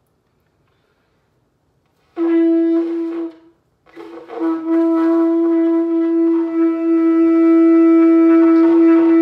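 A long spiralled Yemenite kudu-horn shofar being blown. After about two seconds of silence comes a short blast that breaks off after about a second, then a long, steady blast on one note.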